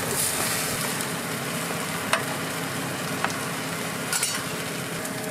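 Egg toasts frying on a flat steel griddle tray, a steady sizzle, with a few short clicks as the toasts are handled, about two, three and four seconds in.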